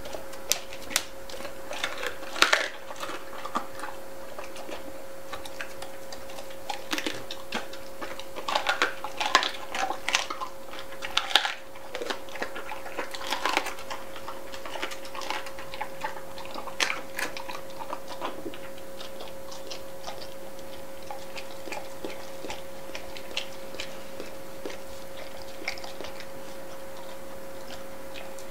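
Chocolate Labrador retriever crunching and chewing a raw duck neck, its bones cracking in irregular bursts of clicks. The crunching thins out after about eighteen seconds into lighter ticks as the dog licks the stainless steel tray. A steady hum runs underneath.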